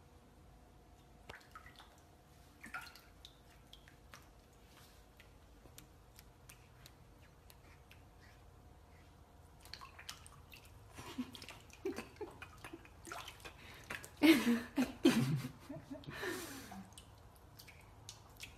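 A cat pawing water in a metal saucepan: scattered light splashes, drips and small knocks against the pot, with a run of louder splashing near the end.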